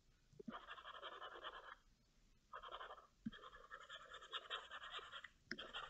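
Faint scratchy rubbing of a computer mouse dragged across a mouse pad during sculpting strokes. It comes in two stretches, a short one near the start and a longer one of about three seconds, with a soft click or two.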